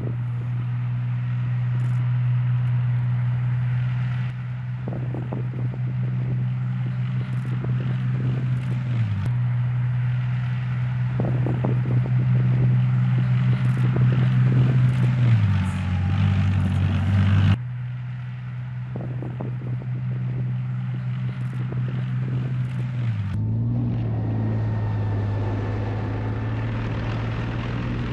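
Leopard tank engines running with a steady, deep drone, with clanks and rattles from the tracks and running gear. The pitch drops a few times as the tanks ease off, and the sound changes suddenly at several cuts between shots.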